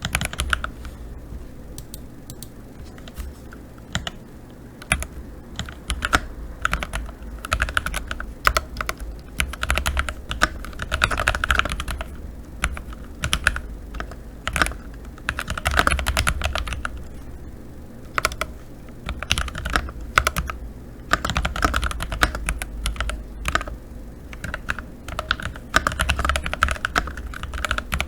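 Typing on a CIDOO ABM084 mechanical keyboard with TTC Gold Pink linear switches: a steady stream of key clacks that comes in faster flurries with short pauses between.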